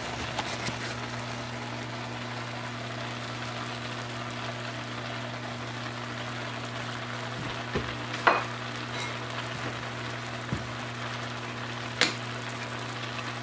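Pot of rice cooking in water on the stove, a steady bubbling, sizzling hiss with a low hum under it. A few sharp knocks of a metal spoon against the pot come in the second half as diced carrots are stirred in.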